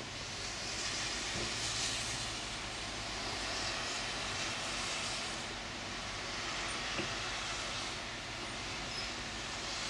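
Steady rushing hiss of wet snow falling through leafy trees in the wind, swelling a couple of times as gusts pass.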